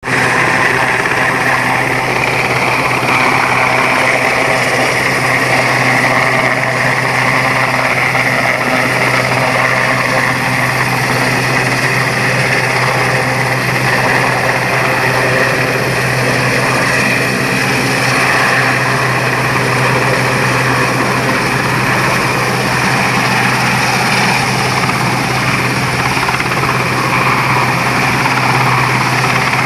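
Westland Sea King search-and-rescue helicopter hovering, its rotor and twin turboshaft engines making a loud, steady din with a high whine.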